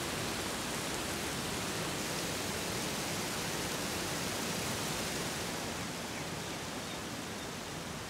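Steady hiss of a small waterfall, water falling in a curtain and splashing into a pool; it eases slightly in level about six seconds in.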